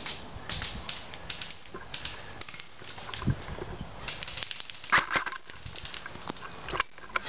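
Footsteps crunching through dry leaf litter and twigs, with brush scraping past, in a run of irregular crackles and snaps. A low thump comes about three seconds in and the loudest cracks about five seconds in.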